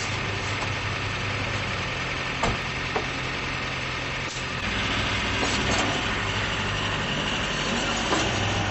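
Small dump truck's diesel engine idling, then working harder about halfway through as the truck drives up the steel loading ramps onto a flatbed carrier. Two short sharp knocks come a little before that.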